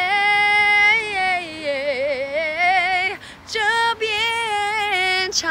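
A woman's voice singing a Guangxi mountain song (shan'ge) in long held notes with wavering, sliding ornaments. She breaks briefly for breath about three seconds in.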